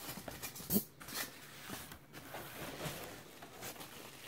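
Packaging being handled in a cardboard box as an item is lifted out and unwrapped: light rustling with many small irregular clicks and knocks.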